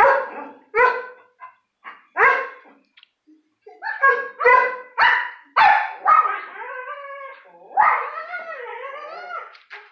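A dog barking: a run of about seven sharp barks, then two longer wavering howling cries in the second half.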